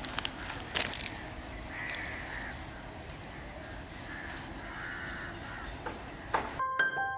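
Crows cawing a few times over a steady outdoor background hiss, with a few sharp clicks about a second in. Piano music starts near the end.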